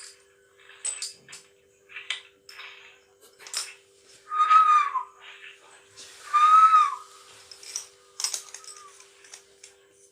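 Two loud, high whistle-like calls about two seconds apart, each rising then falling, amid scattered faint clicks and rustles.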